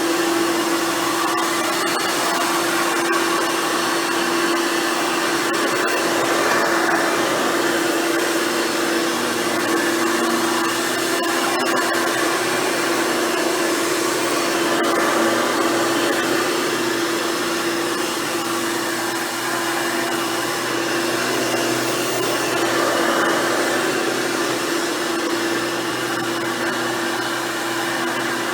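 Hoover Futura Dimension upright vacuum cleaner running steadily, cleaning carpet: a constant motor hum with one steady tone under the rush of air.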